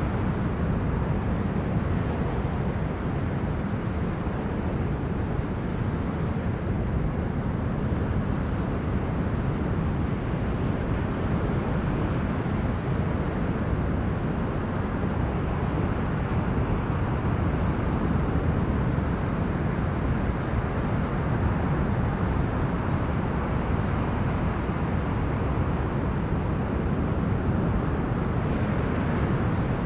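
Strong storm wind blowing across the microphone over the rush of sea waves on a beach: a deep, steady noise with no separate wave crashes standing out.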